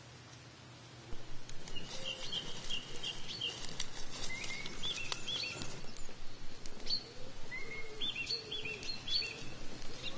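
Open wood fire crackling with many short sharp snaps as a whole plucked rooster is held in the flames to singe it, while small birds chirp in quick repeated runs. The sound comes in suddenly about a second in, after a quiet start.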